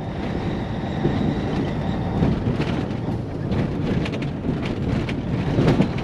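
Cabover Peterbilt semi truck driving loaded: steady engine and tyre rumble with irregular clatters and knocks from the rig and the rough road.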